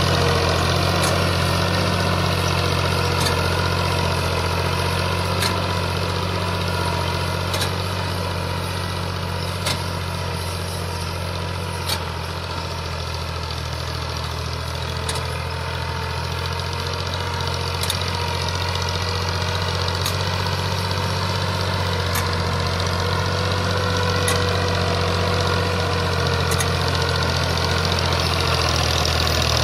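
Fiat 480 tractor's three-cylinder diesel engine running steadily under load as it pulls a seed drill. It grows a little quieter in the middle as the tractor moves away, then louder again near the end. A light click sounds about every two seconds.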